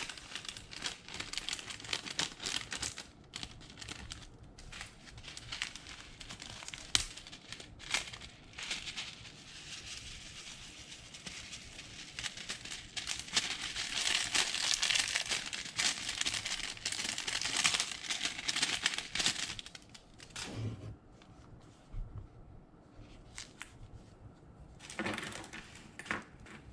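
Slime being kneaded and stretched by hand, with a dense run of sticky crackles and small pops. It is busiest and loudest in the middle stretch, then thins out to scattered clicks.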